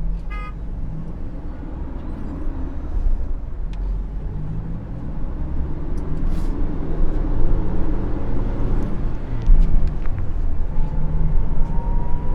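Motor vehicle driving: a steady low engine rumble with road noise that slowly grows louder, with a brief rapid run of high beeps at the very start.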